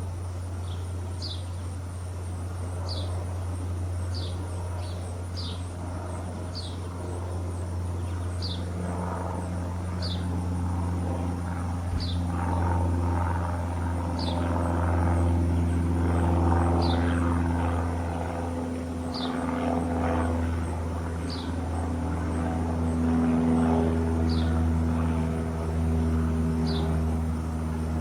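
A squirrel gnaws a pecan shell, heard as irregular crackling through the middle of the stretch. Under it runs a steady low mechanical hum, and a bird gives a short, high, downslurred chirp about once a second.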